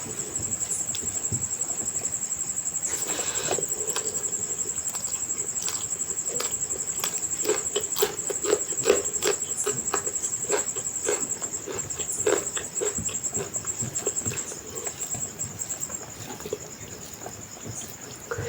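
Close-miked eating: chewing and wet mouth smacks and clicks from eating rice with mutton and fish curry, busiest from about seven to thirteen seconds in. A steady high-pitched whine runs underneath.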